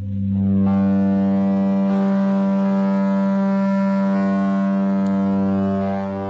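Set of metal chime tubes tuned to the harmonic series in just intonation, struck one after another up the scale and left ringing: a dense chord of steady sustained tones. New notes enter about a second in and again about two seconds in.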